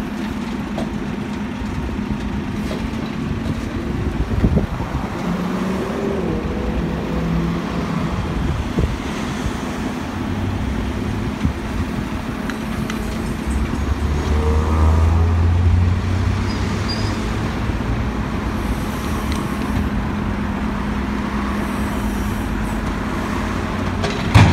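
JCB backhoe loader's diesel engine running steadily while its hydraulic arm digs soil and swings the loaded bucket over a dump truck. A heavier low rumble lasts about two seconds midway, and a sharp knock comes near the end, over a background of street traffic.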